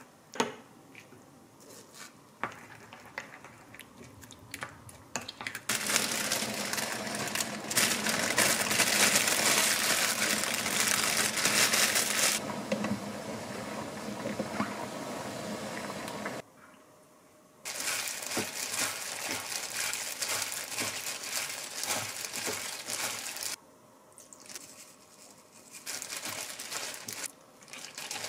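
Kitchen food-prep sounds: a spoon scraping and clicking in a ceramic ramekin as sauce is stirred, then two long stretches of steady rushing noise while bean sprouts are blanched in a steaming pot. Near the end, a disposable plastic glove crinkles as the sprouts are mixed by hand in a glass bowl.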